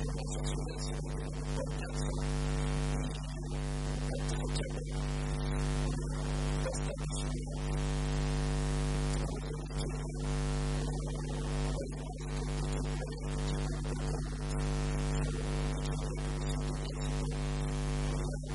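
Steady electrical mains hum and buzz: a constant stack of fixed tones.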